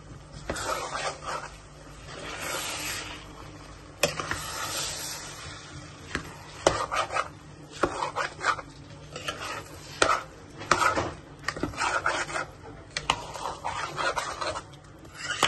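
A spoon stirring and scraping food in a metal cooking pot: repeated irregular strokes with sharp clicks of metal on metal.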